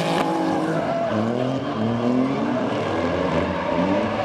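Two drift cars' engines revving hard while sliding in tandem. Their pitch climbs and drops back again and again as the drivers work the throttle.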